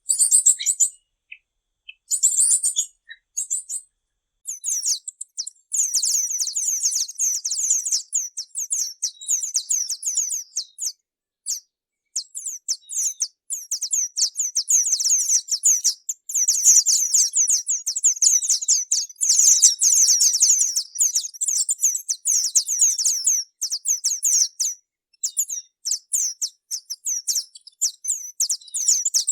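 Tanager song: rapid runs of very high, thin notes, many a second. It comes in short bursts with pauses at first, then runs almost without a break from about five seconds in.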